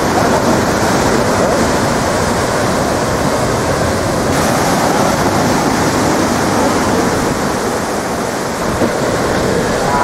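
Large ocean swell breaking on the shore: a steady, loud rush of surf.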